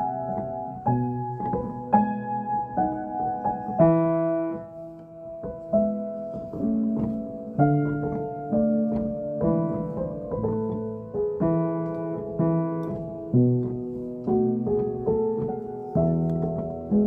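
Piano played with both hands: a slow piece of chords and melody over bass notes that change about once a second.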